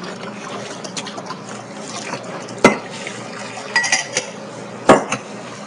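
Kitchen clatter of dishes and cutlery: two sharp knocks, one midway and one near the end, with a short ringing clink of metal on crockery between them, over a steady hiss.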